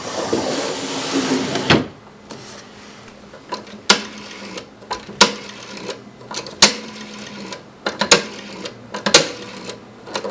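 A rustling scrape for the first couple of seconds, then a rotary telephone being dialed: a sharp click every second or so as the dial springs back after each digit, with lighter ticking between the clicks.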